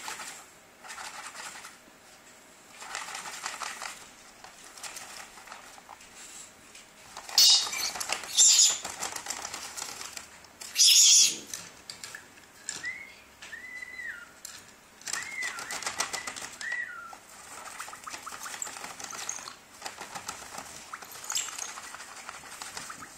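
Blue-streaked lory rustling and crinkling a paper bag as it plays in it. There are three loud, harsh bursts about a third to halfway through, then a run of short whistled notes that rise and fall.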